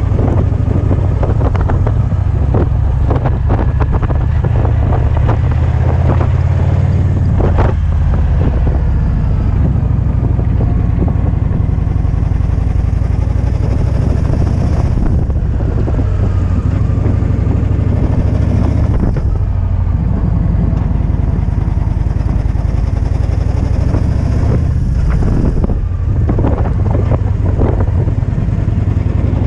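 Riding a 2008 Victory Vision touring motorcycle, heard from a helmet-side-mounted action camera: heavy, steady wind buffeting on the microphone, with the bike's V-twin engine running underneath.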